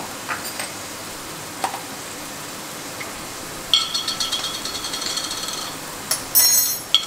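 Onions frying in a wok with a steady sizzle. A few light clicks come in the first two seconds, then a metal lid is twisted off a glass spice jar with a squeaky, rhythmic grinding for about two seconds. Near the end there are a couple of loud, ringing clinks of the lid and jar on the counter.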